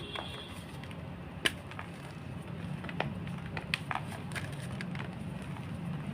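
Blocks of gym chalk being crushed, giving irregular sharp crunches and crackles, the sharpest about one and a half seconds in.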